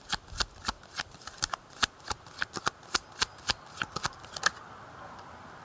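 Tarot cards being shuffled by hand: a quick run of sharp card clicks, about four or five a second, that stops about four and a half seconds in.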